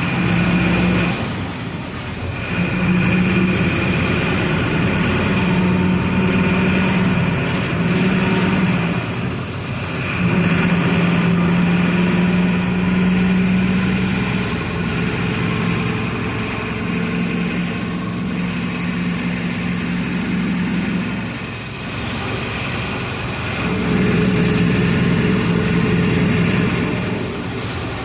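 Diesel engine of a Volksbus 17-230 EOD bus running under load with a steady low drone. The engine note drops away briefly several times, at about 2, 10 and 22 seconds and again near the end, then pulls back up, as the bus shifts gears.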